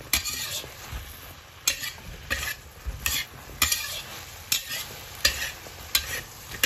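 Metal spatula scraping and turning vegetables and Chinese sausage in a wok over a steady sizzle, with regular strokes a little more than once a second. This is stir-frying with the sauce just added, working it through the food.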